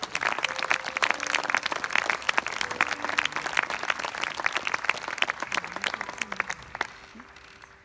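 Audience applauding with dense clapping that thins out and fades away over the last second or so.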